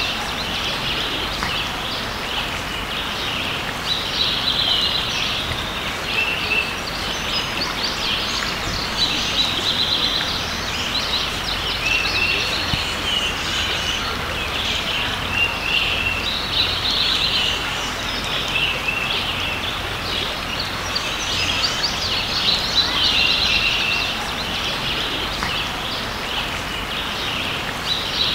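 A creek running steadily, with a songbird singing short repeated phrases every second or two over the water noise.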